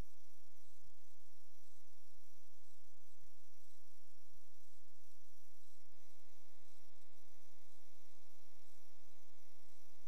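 Steady electrical mains hum, buzzy with many overtones, with a thin high whine above it and no other sound: hum on a sewer inspection camera's recording.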